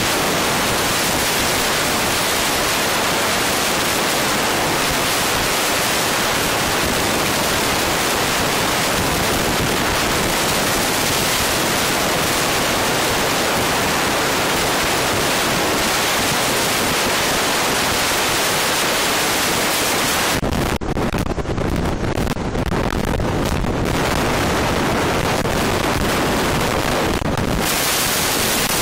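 Steady, loud rushing hiss with no distinct tones, like wind blowing across the microphone, masking anything else. From about two-thirds of the way through, for several seconds, the hiss dulls and a deeper rumble takes over before the even hiss returns.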